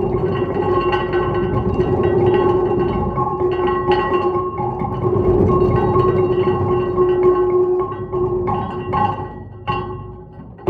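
Serpentine stone plates resting on a bass drum, ringing with a steady, overtone-rich hum of two held pitches over a rough, busy texture. In the last couple of seconds the texture drops away and a few separate strikes ring out and fade.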